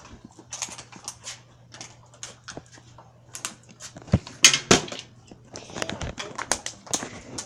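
Footsteps and shoe scuffs on a concrete sidewalk with knocks from a handheld phone camera: irregular clicks, loudest about four and a half seconds in.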